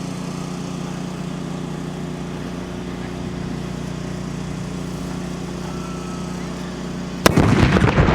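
A steady low engine hum, then about seven seconds in a sudden, very loud blast: the black-powder charge of an anvil shoot firing and launching the top anvil.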